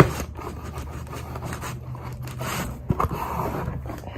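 A blade slitting open a cardboard box: irregular scraping and rasping of the cut, with a sharp click at the start and a few knocks about three seconds in.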